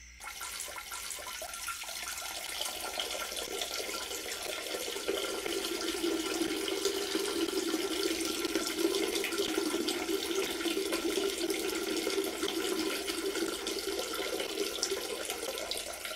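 Water running steadily, as when a tank is being filled; it fades out near the end.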